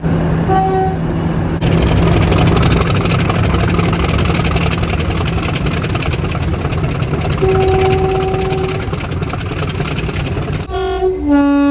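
A train running with a loud, steady rumble, its horn sounding a short toot under a second in and a longer single-note blast of about a second past the middle. Near the end the rumble cuts off abruptly, and a horn gives a short note, then a lower, louder one.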